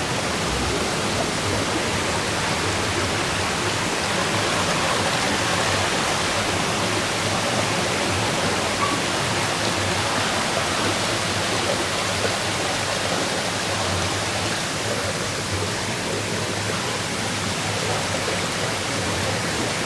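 Mountain valley stream rushing steadily, an even hiss of running water with no breaks.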